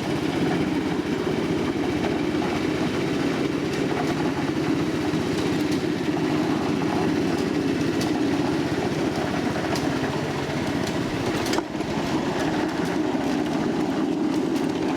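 A 1/8-scale ride-on miniature train rolling along its track: a steady rumble of wheels on the rails, with scattered faint clicks.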